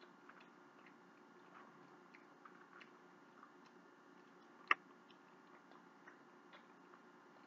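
Faint eating sounds: small scattered mouth clicks of chewing, with one sharper click just under five seconds in, over a low steady room hum.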